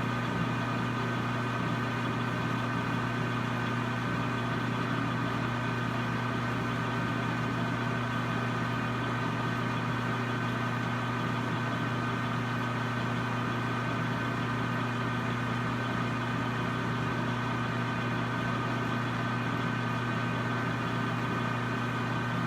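Metal lathe running at a steady speed with an even motor hum and a higher whine, its spindle turning a steel ball handle that is being polished with a Scotch-Brite pad.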